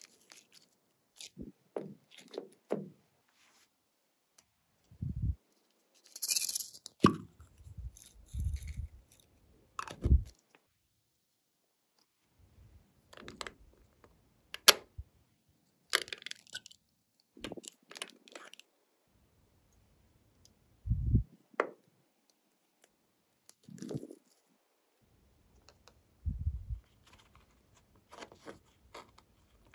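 Hands handling slime and small containers: separate clicks, crinkles and crackles alternate with soft low thuds and squishes, with silent gaps between them.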